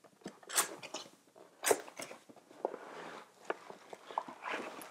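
Small cardboard box being pulled open and handled: flaps scraping and snapping, with irregular sharp clicks and rustles, the loudest about half a second and just under two seconds in.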